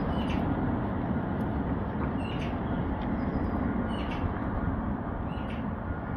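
Steady low outdoor rumble, slowly fading, with short bird chirps every second or two.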